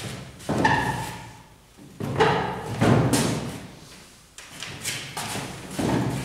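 Whiteboard marker dragged across a whiteboard in several long strokes, scraping loudly, with a brief squeak about half a second in.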